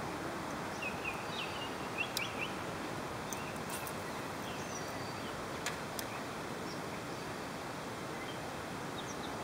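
Outdoor ambience: a steady hiss of background noise with short bird chirps scattered through, most of them in the first few seconds, and a couple of faint clicks near the middle.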